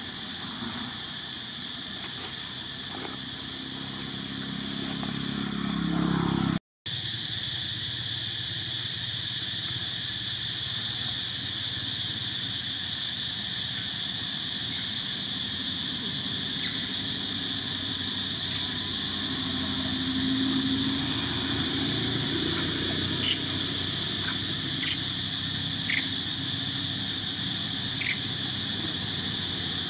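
Outdoor forest ambience: a steady high-pitched insect drone throughout, with a low distant engine rumble that swells twice. The sound cuts out for a moment about a third of the way in, and four short sharp chirps come near the end.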